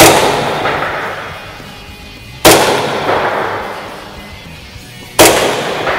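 Three shots from an RWA Nighthawk Custom GRP CO2 gas-blowback airsoft pistol with a steel slide, about two and a half seconds apart. Each shot is a sharp crack followed by a long decaying echo.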